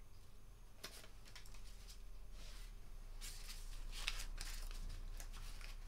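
Paper banknotes being handled and counted on a counter: a scatter of faint, crisp paper rustles and flicks over a low room hum.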